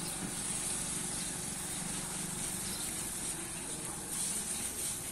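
A motorcycle engine running at a distance, faint under a steady high hiss.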